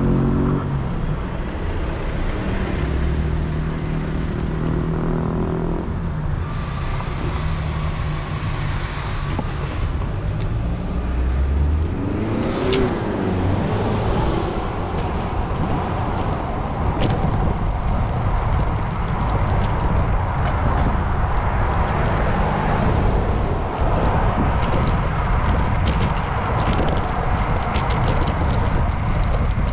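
City road traffic heard from a bicycle: motor vehicle engines running close by, and one vehicle passing about twelve seconds in with a rising then falling pitch, over steady traffic noise with a few sharp clicks.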